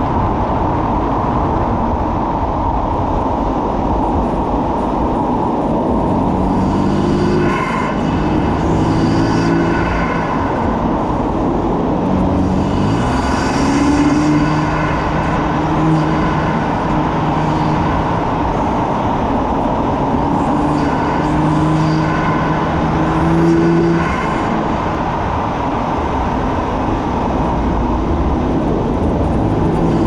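BMW F80 M3's twin-turbo inline-six with an M Performance titanium exhaust, driven along a winding road. The engine note climbs in three acceleration pulls of a few seconds each, over heavy, steady tyre and wind noise.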